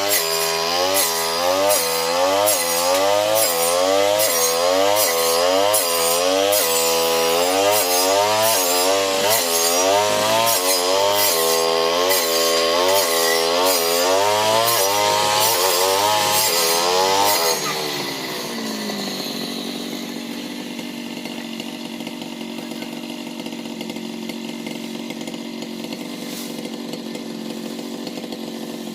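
Brush cutter engine working as it cuts patchouli plants, its speed rising and falling over and over. About 17 seconds in, the engine drops back to a steady idle.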